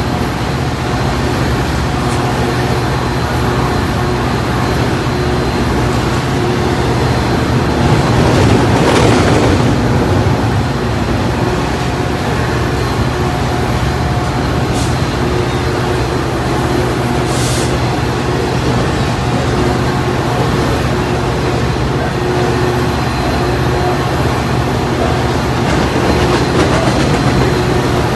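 BNSF intermodal freight train rolling past on the next track, a continuous loud rumble of steel wheels on rail, over the steady hum of a Metra diesel locomotive idling at the platform. The rumble swells about eight seconds in, with a couple of brief high hisses later on.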